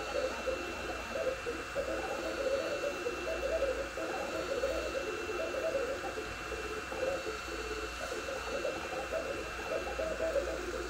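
Two Trees Sapphire Plus 3D printer printing at 130 mm/s: its stepper motors sing in short, quickly changing pitched notes as the print head darts back and forth, over a steady high whine and a low hum.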